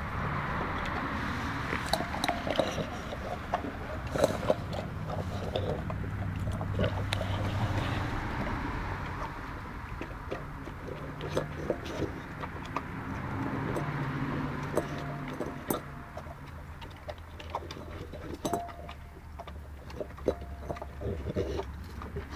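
Alapaha Blue Blood Bulldog eating raw meaty bones and ground carcass, with irregular cracks and clicks of crunching and chewing, over a steady low hum.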